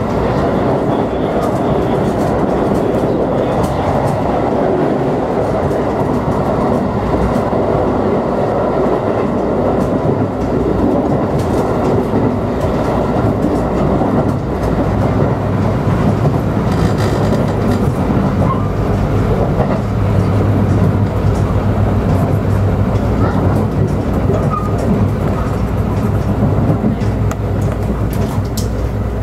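Running noise of an electric multiple-unit passenger train heard from inside the carriage at speed: a steady rumble of wheels on rail with occasional clicks, and a low hum that grows stronger in the second half.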